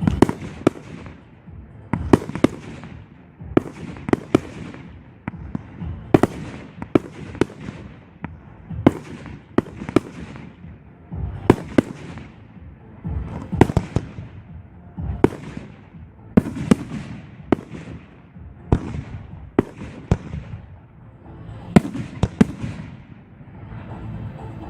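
Fireworks display: a steady run of sharp bangs, about one a second, with a low rumbling echo between them.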